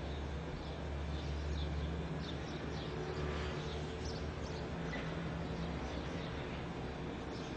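Dawn city ambience: small birds chirp in many short high calls over a steady low hum from the city.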